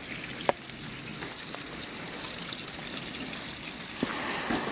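Maple sap running out of a sap tank being drained, a steady trickling and splashing of liquid. A sharp click about half a second in.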